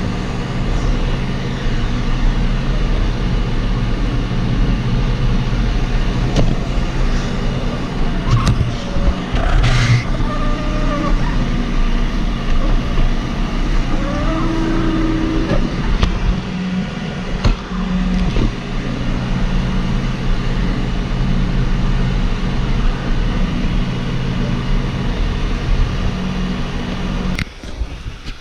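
ECOVACS DEEBOT N79 robot vacuum running, heard from a camera riding on top of it: a steady hum of its fan and brush motors with a few brief squeaks and knocks around the middle. The hum drops away near the end.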